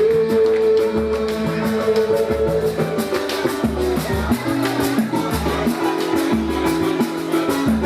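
Live samba band playing an instrumental stretch: plucked strings over a quick, steady percussion beat with regular low drum thumps.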